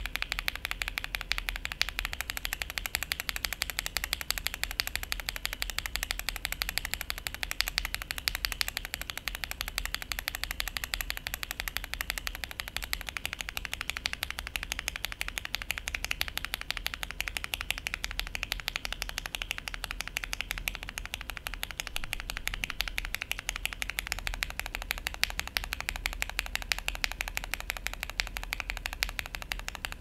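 Rapid, continuous typing on a Tester68 mechanical keyboard fitted with Krytox 205g0-lubed linear switches: Gateron Vermilion Bird, then Gateron CJ, Box CJ and Oil King, the switch set changing a few times along the way.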